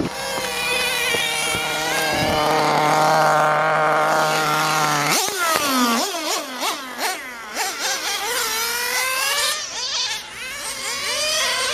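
Small high-revving engine of a radio-controlled on-road model car, held at steady high revs for about five seconds, then revved up and down in quick repeated blips.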